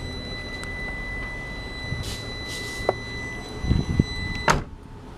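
A steady high-pitched warning tone sounds from the Proton Perdana's cabin while someone moves and knocks about getting out. About four and a half seconds in, the door is shut with a loud thud, the tone cuts off, and the idling engine's low hum carries on more quietly.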